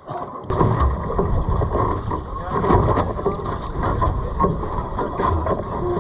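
Wind buffeting the microphone on an open fishing boat, with water washing against the hull. It starts abruptly about half a second in and carries a heavy low rumble.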